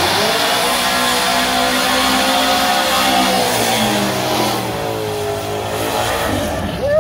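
Drag car engine revving up and down hard, with a dense rushing, hissing noise on top that fits tyres spinning in a burnout. Near the end a higher whine rises and then holds.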